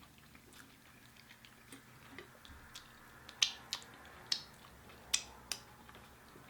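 Close-miked chewing and mouth sounds while eating: scattered wet clicks and smacks, with a few louder ones in the second half.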